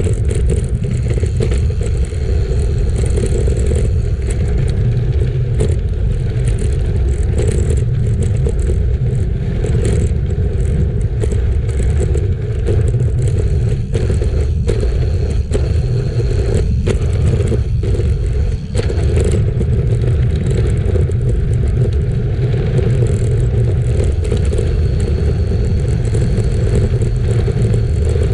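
Riding noise from a road bike on a gravel ride: wind buffeting the microphone as a steady low rumble, with the tyres scraping and clattering over the ground.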